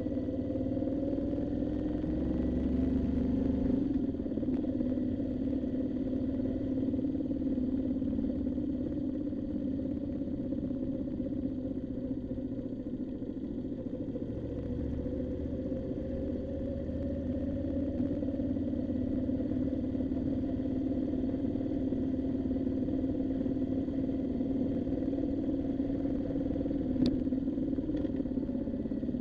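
Moto Guzzi V7 motorcycle engine running on the move, its pitch climbing over the first few seconds, dropping about four seconds in, then rising and falling gently, over a low rumble of wind and road. A single sharp click comes near the end.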